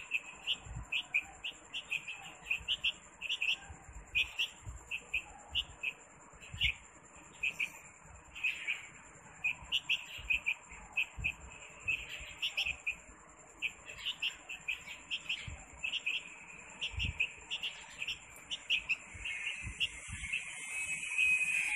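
Young bulbul chick chirping over and over: short, high chirps about two a second, kept up with only brief pauses.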